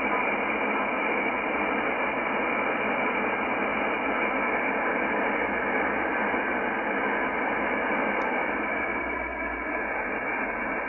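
Shortwave static from a Yaesu FTdx10 transceiver's speaker, tuned in upper sideband to an aeronautical channel near 17.946 MHz. It is a steady hiss, cut off sharply above about 3 kHz by the sideband filter, with no clear voice coming through.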